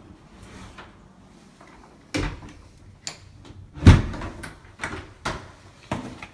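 A series of knocks and thumps, about one every second; the loudest, deepest one comes a little past the middle.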